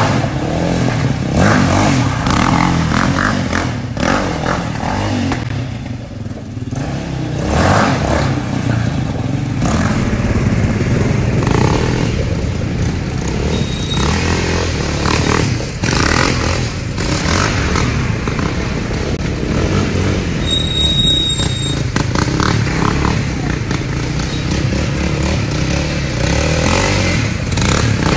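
Yamaha Raptor 700 quad's single-cylinder engine revving again and again as the ATV is ridden and slid around, with bursts of throttle rising and falling.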